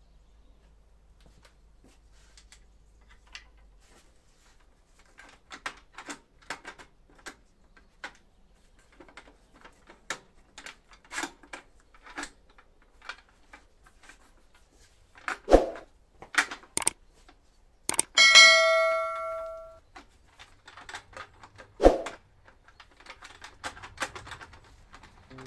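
Metal parts and a hand tool knocking against a table saw during assembly: scattered light clicks and taps, then several sharp knocks. About three quarters of the way through, a metallic clang rings for about a second and a half.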